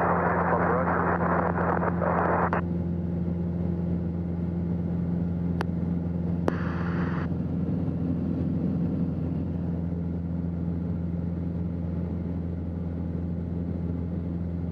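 Piper Warrior's four-cylinder Lycoming engine and propeller droning steadily at full climb power, heard inside the cockpit. Two brief bursts of hiss cut in over it: one lasting about two and a half seconds at the start, another about a second long some six seconds in.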